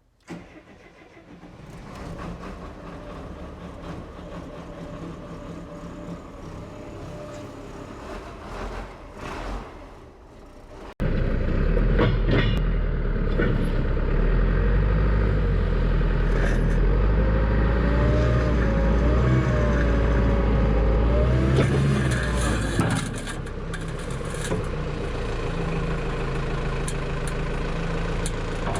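Heavy equipment diesel engine, most likely the loader, running at moderate level, then, after an abrupt cut about eleven seconds in, much louder and close by, its engine pitch rising and falling as it works under hydraulic load before settling back.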